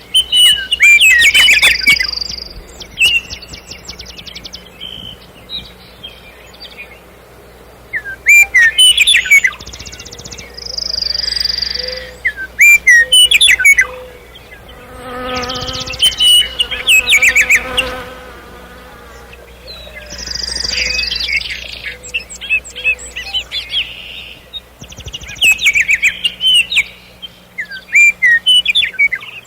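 Nightingale singing: loud, varied song phrases of rapid trills, clicks and whistled notes, each lasting a couple of seconds and separated by short pauses.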